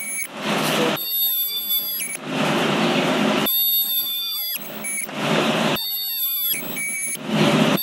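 Hand-held ultrasonic welder (Sonics & Materials) spot-welding a chicken manure belt: a steady high-pitched whine, broken four times by a loud, harsh squeal lasting up to about a second each time the tip is pressed into the belt.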